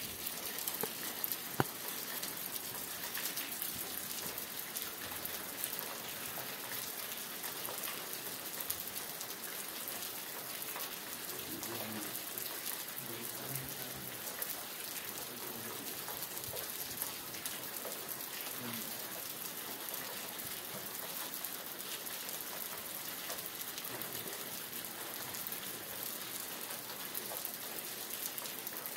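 Steady rain falling: a dense, even hiss of drops with fine individual drop ticks. There is a single sharp click about a second and a half in.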